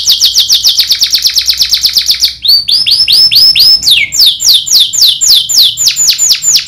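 Domestic canary singing loudly in rapid rolls. It opens with a fast trill of downward-sweeping whistled notes, about ten a second. After a short break about two seconds in, it moves to slower repeated downward-sweeping notes that quicken toward the end.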